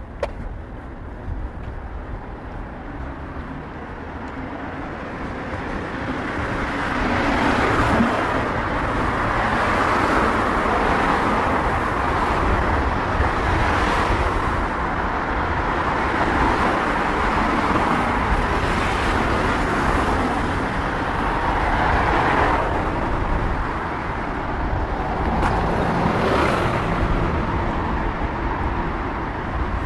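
Road traffic: cars passing one after another, each swelling and fading over a steady low rumble, growing louder about six seconds in.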